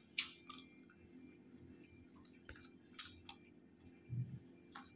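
Faint scattered clicks and soft taps of someone eating: a utensil and mouth sounds as black chickpea curry is tasted, with one soft low thump about four seconds in.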